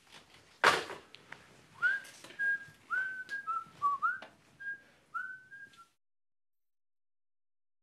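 Person whistling a short tune of about ten notes, many of them scooping up in pitch, which stops abruptly about six seconds in. Before the tune, a little under a second in, comes a single short, loud burst of noise.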